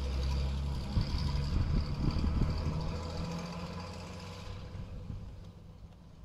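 M5A1 halftrack's six-cylinder petrol engine running at low speed as the vehicle pulls away, with a few knocks and rattles about one to two seconds in. The sound fades steadily over the second half.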